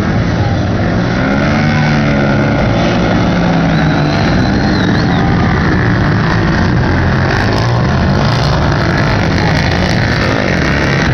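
Several 250-400cc racing quads (ATVs) running together, their engines revving up and falling back repeatedly, with overlapping rising and falling engine notes.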